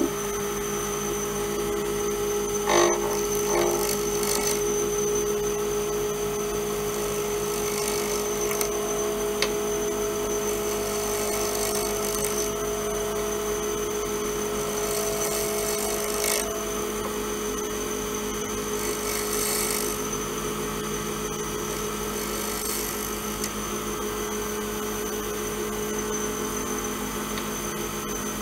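Lathe running steadily with an even hum while a turning tool cuts a spinning Alumilite resin pen blank, with brief scraping bursts as the tool bites into the CA-glue-filled repair.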